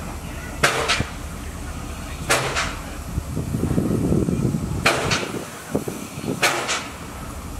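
Railway carriage wheels clacking over rail joints as a double "clack-clack" about every two seconds, over the train's steady running rumble, which swells for about a second midway.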